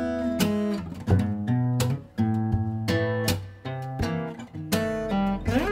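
Music: an acoustic guitar strumming chords in a steady rhythm.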